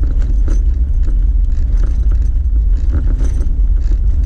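Jeep Wrangler driving slowly on a wet gravel road, heard from inside the cab: a steady low rumble of engine and tyres, with scattered light clicks and rattles.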